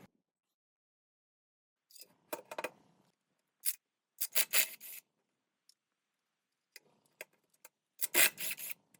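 Hand scraping or filing on metal pump parts, in several short bursts with a few light clicks between; the last burst, near the end, is the loudest.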